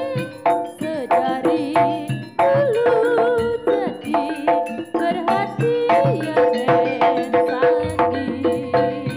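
Live jaranan gamelan music: drums and struck metal-keyed percussion keep a steady, rhythmic beat under a held, wavering melody line.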